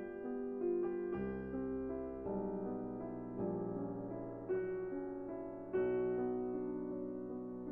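Background piano music: soft, slow chords and a simple melody.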